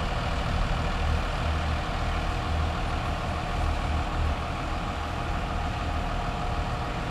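An engine running steadily, with a low uneven rumble and a faint steady hum.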